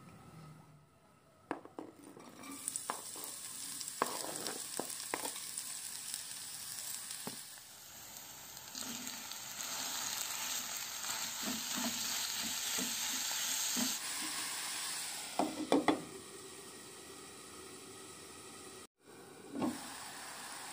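Minced beef and onion sizzling as they fry in oil in a nonstick frying pan, with scattered taps and scrapes of a utensil stirring them. The sizzle changes abruptly a few times.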